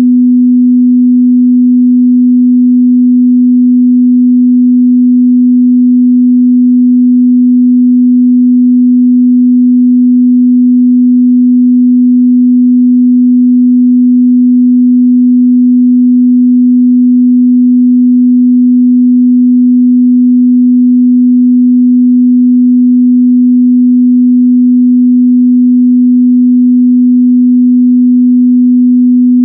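Steady, loud 248 Hz sine-wave test tone, one pure pitch held without change, used to check a speaker's or headphone's mid-bass response.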